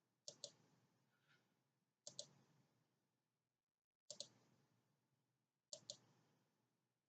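Computer mouse double-clicked four times, roughly every two seconds, with near silence between the clicks.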